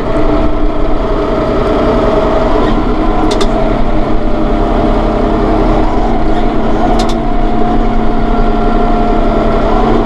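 Massey Ferguson 4610M tractor's diesel engine running steadily under way in sixth gear, heard from inside the cab: a constant drone with a steady high whine over it. A couple of short clicks are heard, about three and seven seconds in.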